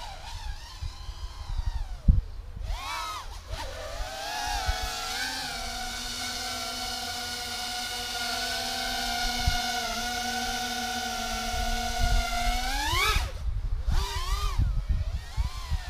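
Mini 130 mm FPV quadcopter's 1306 brushless motors and three-inch bullnose propellers whining. The pitch rises and falls with the throttle, holds steady in a hover for several seconds, then climbs sharply near the end as the throttle is punched.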